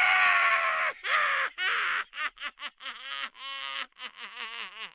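Girls laughing hard: a long high-pitched shriek of laughter for about the first second, two shorter cries, then a quick run of ha-ha laughs that fades near the end.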